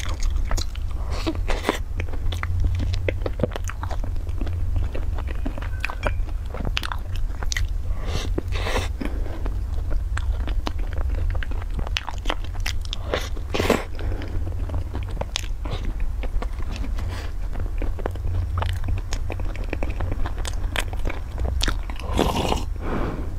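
Close-miked eating: a pastry dunked in a milky drink being bitten and chewed, with many short crunchy clicks and wet mouth sounds. Near the end she drinks from the glass, a few seconds of denser sound. A steady low hum runs underneath.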